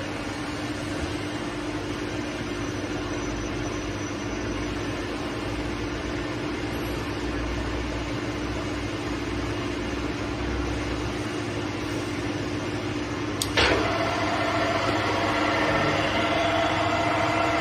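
Large manual lathe running, its spindle and gear train giving a steady hum with one held tone. About three-quarters of the way through there is a sharp click, and then the running sound turns louder and brighter with several higher steady tones.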